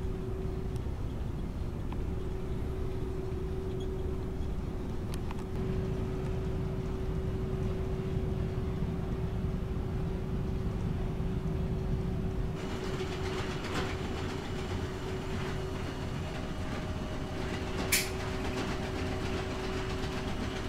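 Steady low rumble of a ferry under way heard from inside its passenger decks, with a constant mid-pitched hum running under it. One sharp click sounds near the end.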